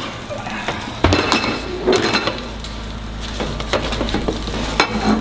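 Metal baking sheet clattering and scraping as it is slid out of an oven and set down on a gas range, with sharp clanks about a second in, near two seconds and again near the end.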